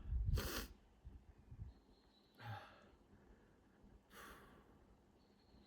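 A person breathing hard close to the microphone: a loud sighing exhale about half a second in, then two softer breaths at roughly two-second intervals.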